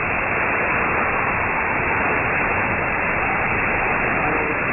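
Steady shortwave static hissing from an Elad FDM-S2 receiver tuned to the 31 m band, with no station programme coming through.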